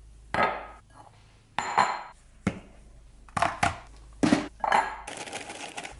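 Glass kitchenware, a measuring cup and a mixing bowl, being set down on a stone countertop: a run of about seven separate clinks and knocks. A steady hiss comes in about five seconds in.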